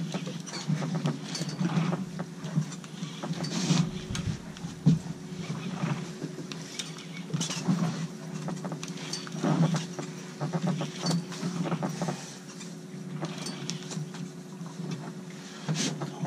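Boat engine running steadily at idle, with scattered clicks and knocks from the tackle and the deck as a fish is played on rod and reel.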